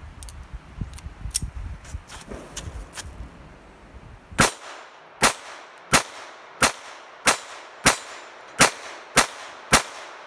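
Phoenix Arms HP22A .22 pocket pistol fired nine times in a steady string, about one shot every two-thirds of a second, each a sharp crack.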